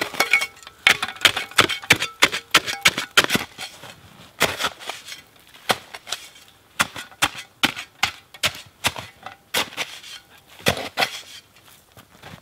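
Metal snow shovel digging and scraping into crusty snow in quick, irregular strokes, a few a second, clearing a patch of snow down to the forest floor.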